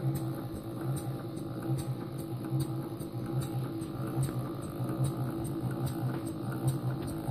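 Scale-model duplex Corliss tandem compound steam engine running: a steady low hum that pulses in an even rhythm, with light regular ticks a little under a second apart.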